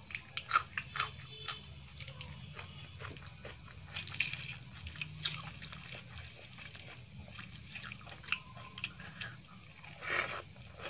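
Close-miked eating: a few crisp bites into a raw green chili, then chewing with scattered mouth clicks, and a louder burst of mouth sounds near the end as a handful of dal and rice goes in.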